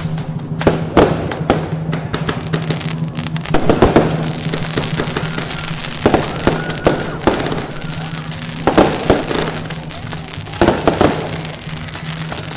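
Firecrackers going off in a dense crackling string, with louder bangs scattered through it, over music.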